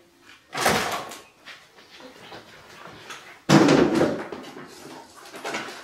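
Two bangs about three seconds apart, the second louder and more abrupt, with a short ring-out after each.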